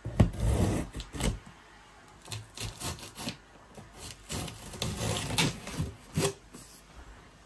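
A cardboard box being opened and handled: scraping and rubbing of cardboard and packaging in irregular bursts, with a sharp knock near the start.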